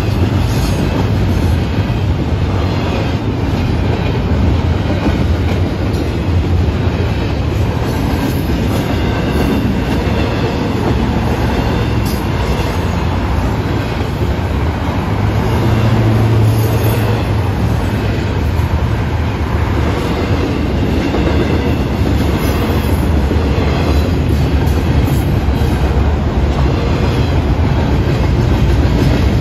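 Double-stack intermodal freight train passing steadily over a grade crossing: the loud, continuous running noise of its loaded container well cars rolling by, heaviest in the low end.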